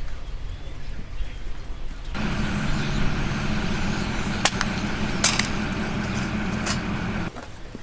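An engine running steadily, growing louder about two seconds in, with a few sharp clicks in the middle, then dropping off abruptly near the end.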